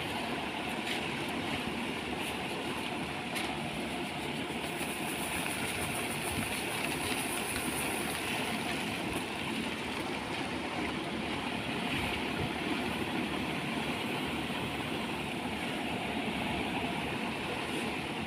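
Solar-powered thresher cum winnower running steadily: an even mechanical noise from its motor and blower fan, with no strokes or changes.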